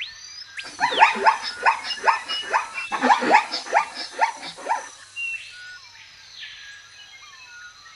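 A dog yelping in a rapid run of short, falling calls, about four a second, that starts about half a second in and stops about five seconds in. Birds chirp faintly behind it.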